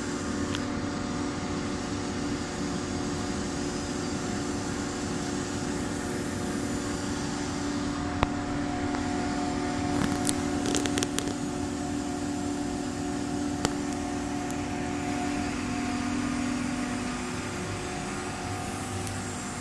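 Steady hum and noise of CNC router machinery running in a woodworking shop, with a few sharp clicks around the middle; the strongest hum fades near the end.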